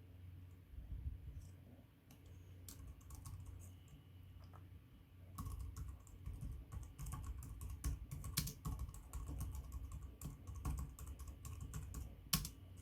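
Typing on an Arteck Bluetooth stainless steel keyboard: a few scattered key presses, then fast, continuous typing from about five seconds in, with one louder key strike near the end.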